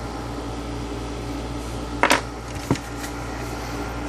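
Black plastic housing of a small mosquito trap knocked while being picked up and turned over in the hands: a sharp clack about two seconds in and a lighter knock just after, over a steady low hum.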